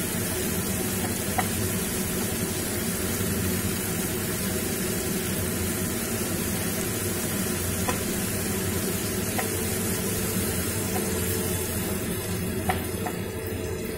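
Crushed garlic and boneless chicken pieces sizzling in hot oil in a frying pan while a spatula stirs them, with a few light taps of the spatula against the pan. The sizzle eases slightly near the end.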